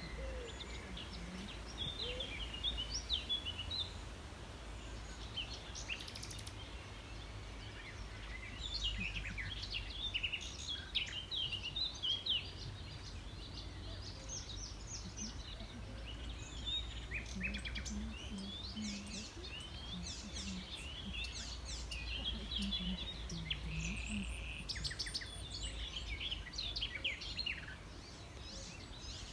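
Several songbirds singing and chirping in overlapping bursts of quick, high notes over a steady low background rumble.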